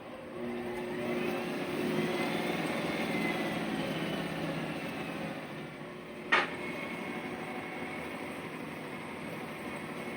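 Treadmill drive motor running under the repaired speed control: its whine rises as the belt speeds up, then slowly falls as it slows. A sharp click comes about six seconds in, after which the motor runs on with a steady whine.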